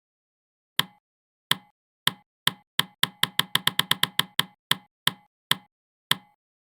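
A series of sharp knocks or clicks with dead silence between them, speeding up to about five a second around the middle and then slowing again.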